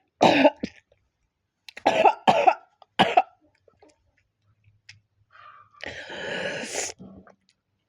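A person coughing: one cough, then a run of three, followed a few seconds later by a longer, rasping throat sound lasting about a second.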